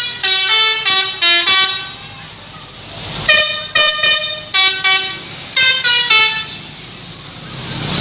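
Bus's multi-tone 'telolet' musical horn playing quick runs of short notes in three bursts, starting, about three seconds in, and around five and a half seconds in, with quieter gaps between.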